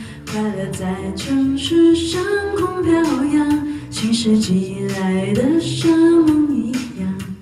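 A woman singing into a handheld wireless microphone over musical accompaniment. The melody moves in long held notes that glide up and down between pitches.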